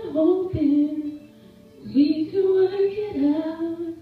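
Woman singing a slow song live into a microphone: a held, wavering phrase, a short pause about a second in, then another long phrase of held notes.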